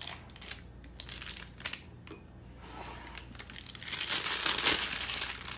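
Scattered scrapes and taps of a spatula scooping squash filling from a glass bowl, then from about four seconds in a piping bag crinkling and rustling loudly as it is filled and handled.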